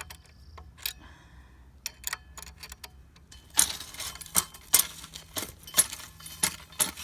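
An adjustable wrench working a steel nut and bolt on a wheel hoe's blade mount, metal clinking on metal. A few scattered clicks at first, then from about halfway a quick run of clinks as the nut is turned.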